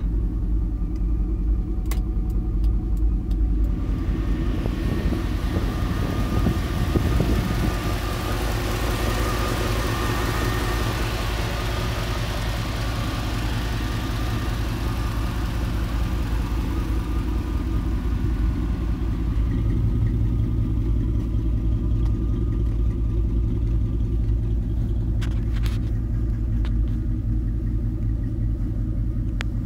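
A 350 TPI small-block V8 idling steadily. A hiss swells over it about four seconds in and fades away again.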